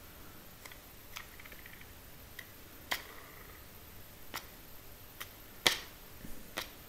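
Light clicks and taps of small plastic parts being handled: a resin 3D-printed H0 model wagon floor section with its wheel sets turned over in the hand. About eight separate clicks, the loudest one a little before the end.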